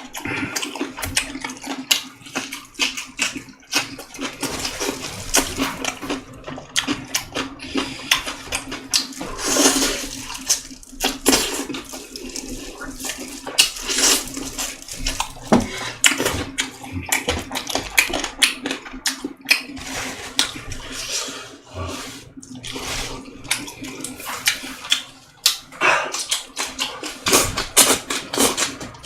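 Close-up eating sounds: wet chewing, smacking and slurping of boiled chicken and its broth, a busy run of irregular short clicks and squelches. A low steady hum sits underneath.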